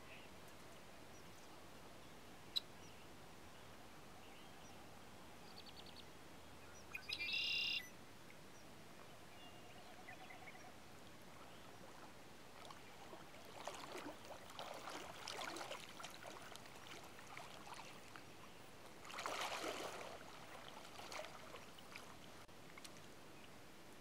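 Water splashing in two bouts, one about fourteen to seventeen seconds in and a shorter one around nineteen seconds in, over a faint stream background. A short, sharp bird call sounds about seven seconds in.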